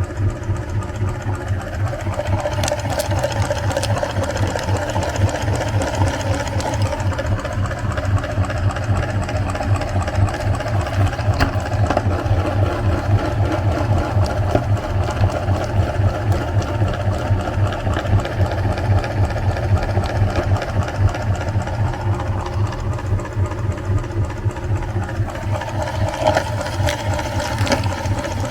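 Electric meat grinder running steadily, its motor giving a low hum with a fast even pulse and a whir, with scattered small clicks.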